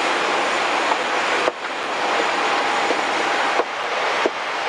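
Steady rushing air noise inside an aircraft cabin, with a faint steady tone and a few small clicks. The noise dips briefly about one and a half seconds in and again near the end.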